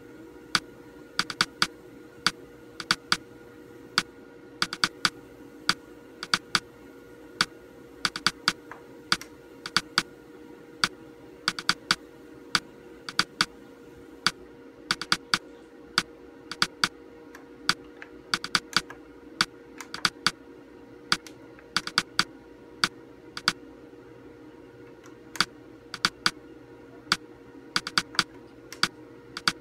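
Front-panel buttons on a Samsung monitor clicking sharply as they are pressed over and over, often in quick pairs or runs with short pauses, each press stepping a menu setting. A steady hum sits underneath.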